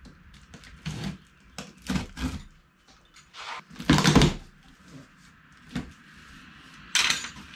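A cardboard box being cut and torn open: packing tape slit and flaps pulled apart, a string of short scrapes, rips and knocks, loudest about four seconds in and again near the end.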